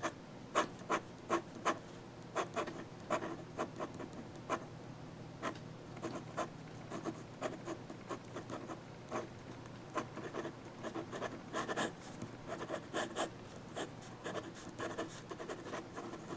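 Fountain pen nib scratching across Strathmore 400 sketch paper in many quick, irregular strokes as it scribbles and hatches.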